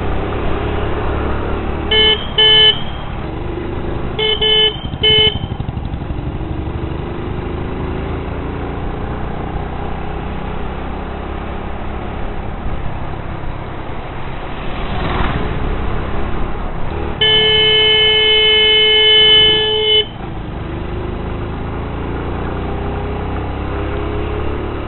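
Road traffic with a steady engine and road rumble, broken by short pairs of horn toots about two and four seconds in, then one long steady horn blast of nearly three seconds past the middle.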